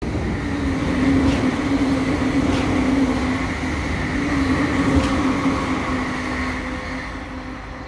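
JR East E657 series electric limited express train passing at speed: dense running noise with a steady hum, a few sharp clicks from the wheels, fading away near the end.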